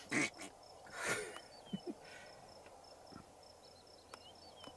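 Insects trilling steadily in a high, evenly pulsed note, with a few short falling chirps over it. Two brief rushes of noise stand out, one right at the start and another about a second in.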